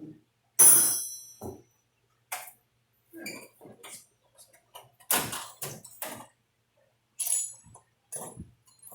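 Metal hand tools clanking and clinking as they are handled: one loud, ringing clank about half a second in, then a series of lighter knocks and clinks.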